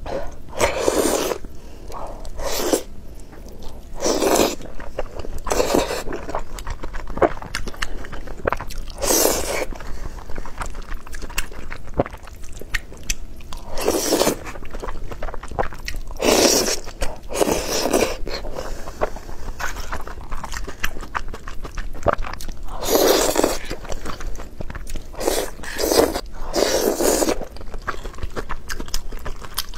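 Close-miked eating: chewing and biting, made up of many small clicks with a louder mouthful sound every couple of seconds.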